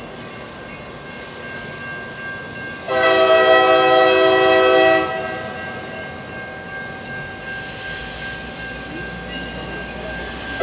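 Lead diesel locomotive's multi-chime air horn sounding one long blast of about two seconds, a few seconds in, as the freight train approaches; a second blast starts right at the end. A low rumble of the oncoming train builds through the second half.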